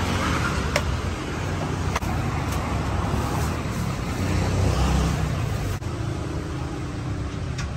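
Steady low rumble of road traffic, swelling briefly past the middle, with a few light clicks.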